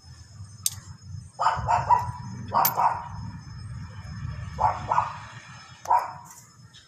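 A dog barking repeatedly, short barks mostly in quick pairs, over a steady low hum. A couple of sharp clicks come in between, about a second in and again between the barks.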